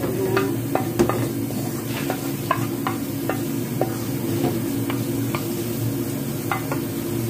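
Metal spoon scraping and clicking against a frying pan at irregular moments as browned flour cooked in butter and oil is spooned out of it, over a steady low hum.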